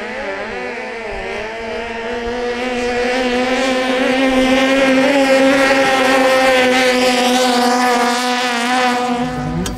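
Racing longtail boats' Toyota 5K four-cylinder car engines running hard at speed, a steady high-pitched engine note. It wavers in pitch at first, grows louder to a peak about halfway as the boats pass, then fades.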